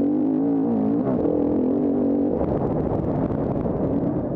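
KTM 350 EXC-F Six Days four-stroke single-cylinder enduro engine running hard under throttle, its pitch wavering up and down. After about two and a half seconds the even engine tone breaks into a rougher, choppier sound.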